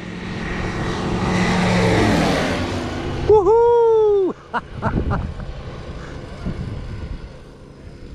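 A small propeller aircraft engine swells in sound to a peak about two seconds in, then eases off. About three seconds in, a loud pitched tone dips, holds for about a second and cuts off suddenly, followed by a few sharp clicks.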